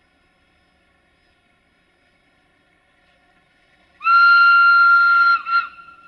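Whistle of the 060-DA (LDE2100) diesel-electric freight locomotive 60-0765-7. About four seconds in it sounds one long, steady, high blast of roughly a second and a half, then a short second toot.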